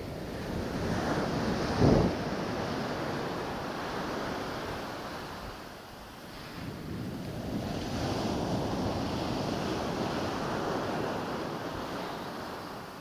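Small surf breaking and washing up a sandy beach, swelling and ebbing in waves, with wind rumbling on the microphone and one brief loud buffet about two seconds in.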